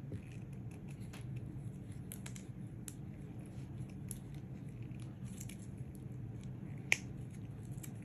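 Faint scattered snips and clicks of paper craft pieces being trimmed with scissors and handled, with one sharper click about seven seconds in, over a steady low room hum.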